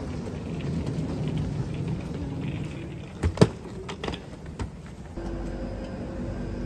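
Hard-shell suitcase wheels rolling over paving, a low steady rumble. About three seconds in there is a sharp knock as a case is lifted up a step, followed by a few lighter clicks. Near the end a steady low hum takes over.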